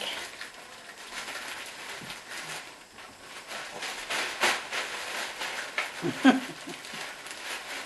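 Plastic delivery bag rustling and crinkling as a dress is pulled out of it, with irregular crackles throughout and a brief vocal sound about six seconds in.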